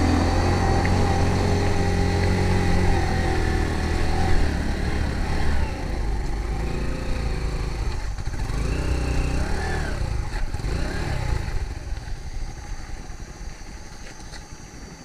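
A vehicle engine running steadily, then fading away over the last several seconds.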